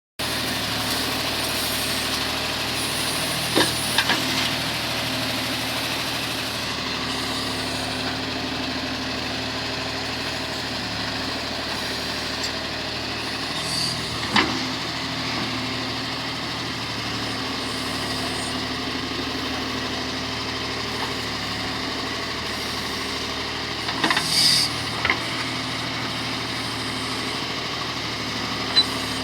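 John Deere 5310 tractor's three-cylinder diesel engine running steadily while powering a Bull backhoe, with a few sharp knocks from the backhoe at work scattered through.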